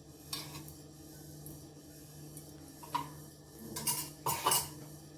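Metal kitchen utensils clinking against a tawa and dishes a few times, the loudest cluster of knocks about four seconds in, over a steady low hum.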